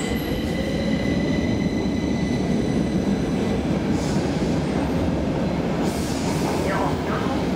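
Metro train running along the platform: a steady rumble of wheels on rails with a high, steady whine, and a low tone that rises in pitch over the first second.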